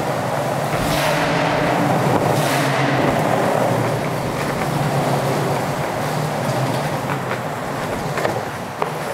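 Longboard wheels rolling over smooth concrete: a steady rolling rumble with a low hum, and a few sharp clicks in the second half, one louder knock near the end.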